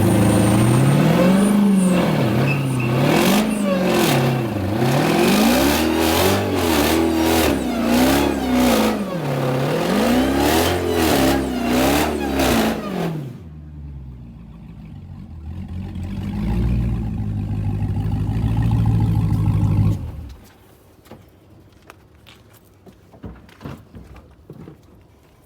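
Dodge Charger Hellcat's supercharged 6.2-litre V8 revved up and down over and over during a burnout, loud, with a rough hiss above the engine note. It then runs at a lower steady pitch for several seconds before stopping suddenly about twenty seconds in.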